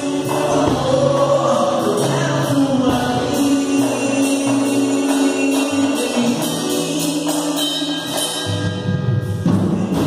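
A Christian worship band playing live: several voices singing together over acoustic guitar, low bass notes and hand drums, with a steady beat.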